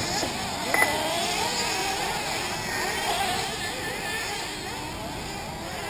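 Several 1/8-scale nitro RC buggy engines buzzing, their pitch rising and falling as they race around the track. A short sharp click with a brief high beep sounds about a second in.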